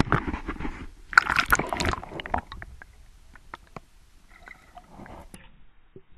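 Water splashing and sloshing against a GoPro camera housing on a boat's hull as it breaks the surface and goes under again, with a loud burst at the start and another about a second in. After that, quieter muffled underwater sound with scattered clicks.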